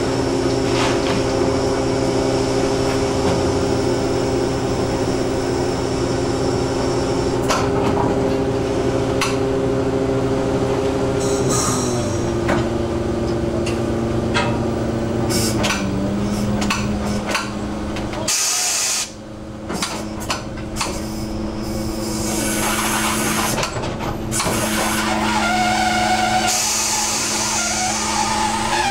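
Fishing boat's engine-driven hydraulic hauling gear running, a steady mechanical drone that drops in pitch twice midway and stops briefly about two-thirds of the way through before resuming. Metal clanks and knocks of gear on deck sound throughout.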